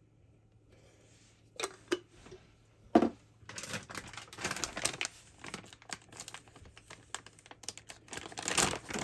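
A few sharp knocks, the loudest about three seconds in, then from about three and a half seconds a plastic bag crinkling and rustling with many small clicks as it is handled and opened.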